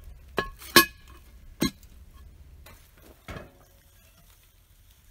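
Cast iron Dutch oven lid being set onto the pot: three sharp metallic clanks with a short ring in the first second and a half, the middle one loudest. About three seconds in, a softer knock as the pot is set down on the fire grate.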